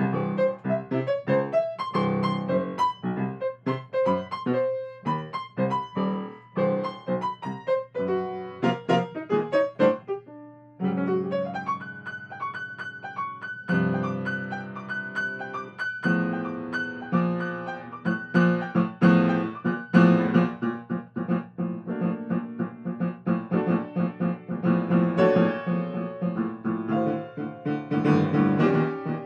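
Grand piano played solo as a free improvisation: quick runs of notes at first, a brief lull about ten seconds in, then fuller sustained chords.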